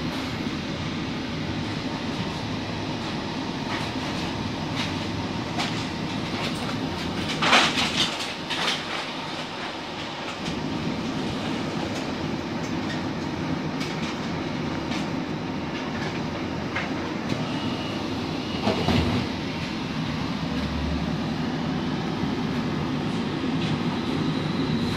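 A streetcar heard from inside the car: a steady rumble of the running car on its rails, with a sharp loud clatter about seven and a half seconds in and another near nineteen seconds.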